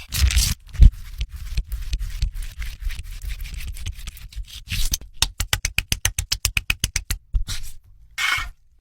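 Close-miked food preparation: scraping and rubbing, then a fast, even run of short strikes, about eight a second, for a couple of seconds, and a short scrape near the end.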